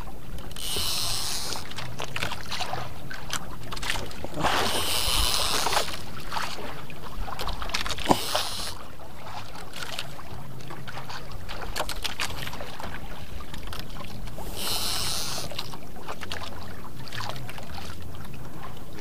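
Wind and water noise around a small outrigger boat at sea, over a steady low hum, with several short hissing surges of about a second each. Light clicks come from a conventional fishing reel being cranked.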